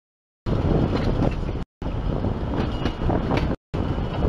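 Wind buffeting the camera microphone: a loud, low, fluttering rumble that starts about half a second in and drops out to silence twice for an instant.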